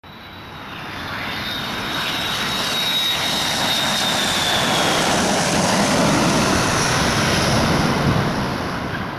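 Jet airliner passing by: a rush of engine noise that builds over the first few seconds, with a high whine that slides slightly down in pitch, then fades out near the end.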